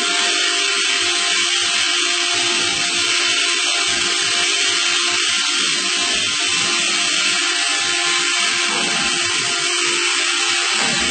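A machine running steadily: a constant high hiss over a steady hum, with irregular low knocks.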